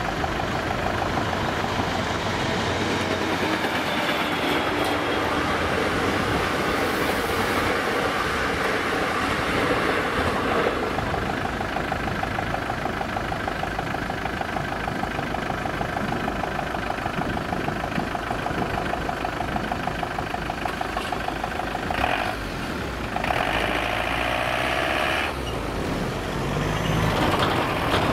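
Level crossing warning bell ringing rapidly and steadily as a train passes. The ringing stops about 22 seconds in, and a shorter separate sound follows about a second later.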